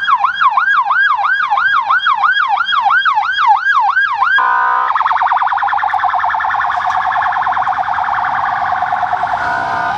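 Electronic siren of a police motorcycle escort, switching modes: first a fast yelp of about three rising-and-falling sweeps a second, then, after about four seconds, a rapid steady warble.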